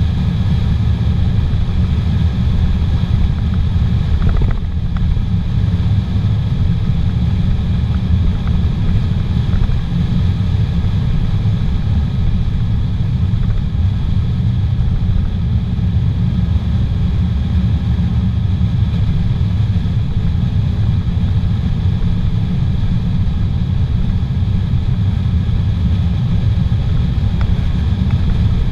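Steady low rumble of road, tyre and engine noise inside a car's cabin while cruising on a paved highway.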